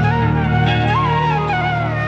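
Background music in Indian film style: a melody that slides between notes over a steady low drone.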